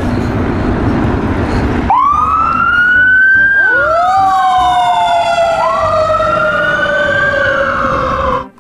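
Fire engine siren. After about two seconds of loud noise, the siren winds up quickly to a high pitch and slowly falls away. It winds up again about two-thirds of the way through, then cuts off just before the end.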